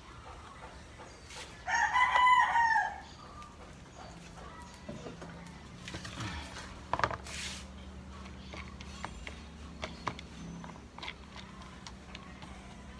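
A rooster crowing once, a bit over a second long, about two seconds in. Faint clicks and rustles of seeds being handled in a plastic colander follow it.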